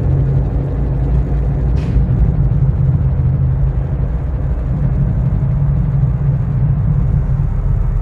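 Low, steady rumbling drone of electronic sound design, with a short hiss about two seconds in.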